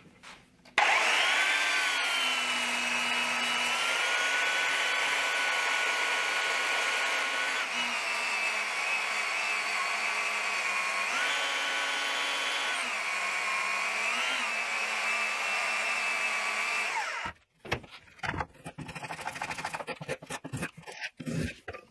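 Handheld Porter-Cable belt sander running against the curved edge of a maple paddle, a steady whine that shifts in pitch a few times. It cuts off about seventeen seconds in, and quick scraping strokes of a spokeshave cutting the wood edge follow.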